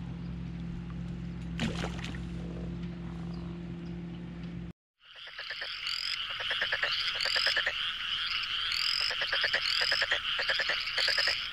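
A steady low hum, which stops at a cut to brief silence about five seconds in. Then a louder chorus of frogs calling: rapid, repeated croaking with high rising chirps over it.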